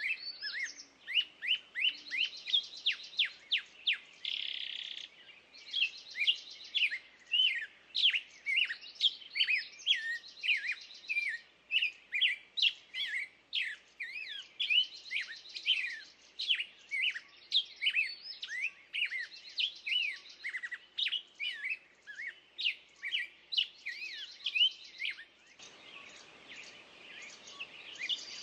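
Dense chorus of songbirds: many short, quick chirps and trills overlapping without pause. A faint low background noise comes in near the end.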